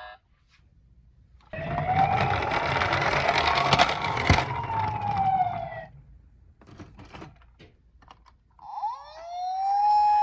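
Toy ambulance minicar's electronic siren sounding in two goes: a wail that rises and then falls over about four seconds with rattling and a sharp knock under it, then a few faint clicks, and a second wail starting near the end.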